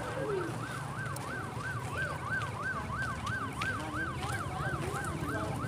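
Electronic siren on a fast yelp, its pitch rising and falling about three times a second, over a steady low hum.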